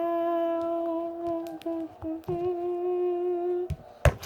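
A girl's voice humming a tune in long, steady held notes with a couple of short ones between. A few sharp clicks sound near the end.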